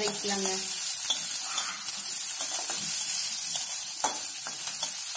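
Chopped onions and green capsicum sizzling in hot oil in a metal kadai, stirred with a metal spatula that scrapes and clicks against the pan.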